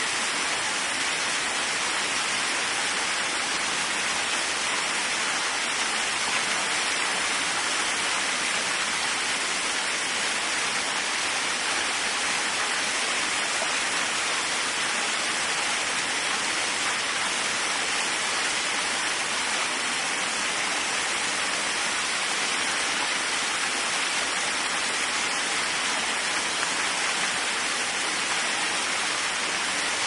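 Waterfall: a steady, unbroken rush of falling water, mostly a bright hiss with little low rumble.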